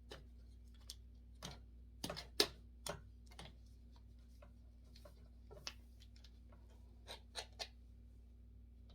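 Irregular clicks and knocks from the parts of a clothes drying rack being clipped and fitted together, bunched in two clusters with the loudest knock about two and a half seconds in. A faint steady hum runs underneath.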